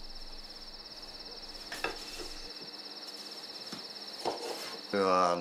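A steady, high insect trill continues throughout, with two soft knocks as a wooden stick is handled against the wooden floor. A man's voice starts near the end.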